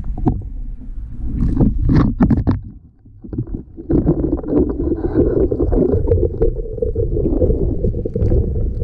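Muffled underwater rumble with a few knocks, picked up through a GoPro's waterproof housing on a poke pole as it is worked among the tide-pool rocks. About four seconds in the camera comes up out of the water, and a steady muffled rumble of the housing being handled follows.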